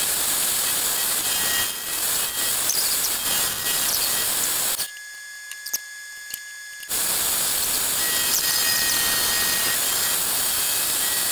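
End mill on a milling machine cutting bronze brazed onto a steel part, a steady high-pitched hiss of metal cutting. It breaks off abruptly for about two seconds near the middle, then resumes.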